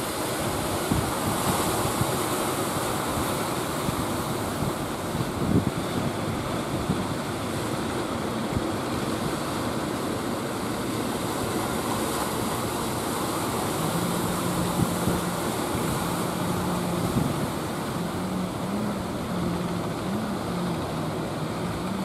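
Surf washing and breaking, with wind buffeting the microphone. About two-thirds of the way in, a wooden fishing boat's engine comes in as a low steady drone whose pitch wavers up and down near the end.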